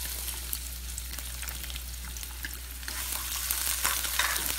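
Chopped garlic sizzling in hot olive oil in a non-stick pan while a spatula stirs it. The sizzle is a steady hiss that grows a little louder in the second half, with a few light scraping ticks.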